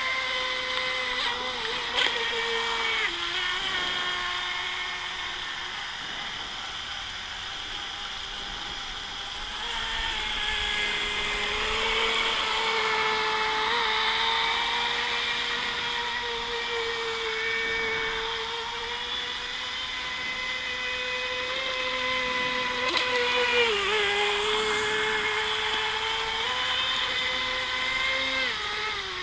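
Electric motor of an RC speedboat whining steadily as the boat runs laps on a 2S LiPo at about 60% throttle. Its pitch dips and recovers a few times, near the start and again about three-quarters through.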